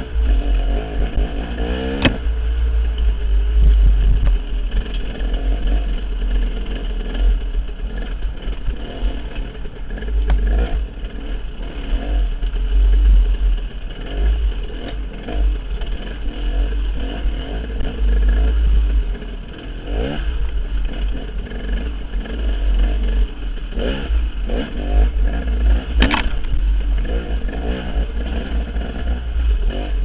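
Two-stroke KTM 300 dirt bike engine revving up and down as it picks its way over rocks, with a heavy deep rumble underneath and a few sharp knocks: at about two seconds in, and twice in the last third.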